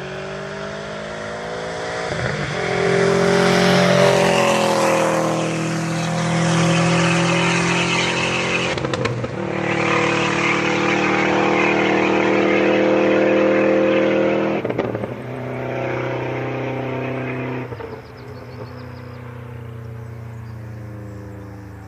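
2012 Subaru WRX STI's turbocharged 2.5-litre flat-four running loud through a straight-piped exhaust. It swells to full volume a few seconds in, with short breaks about nine and fifteen seconds in, then eases off near the end.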